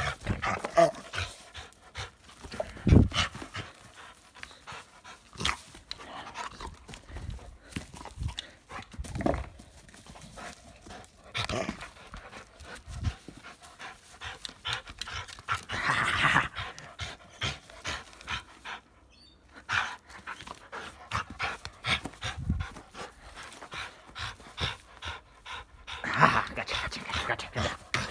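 A dog at play tugging on a toy, its breathing and mouthing sounds mixed with scattered knocks and scuffles, louder in two stretches about two-thirds of the way in and near the end.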